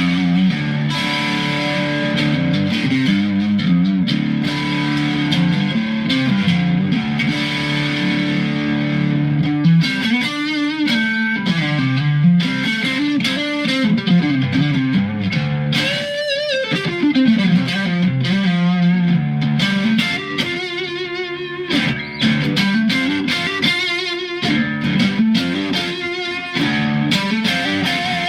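Mexican-made Fender Stratocaster electric guitar in drop tuning, played through an amp with effects: low riffs with string bends and vibrato, and a long falling pitch slide a little past the middle.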